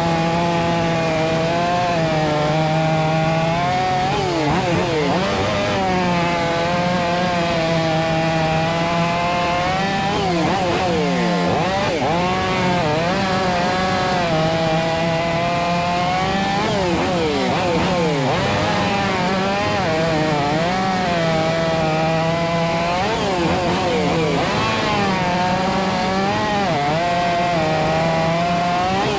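Two chainsaws, a STIHL MS 500i and a clone of a STIHL 460, run at full throttle while bucking logs. Their engine pitch drops under each cut and climbs back again, over and over.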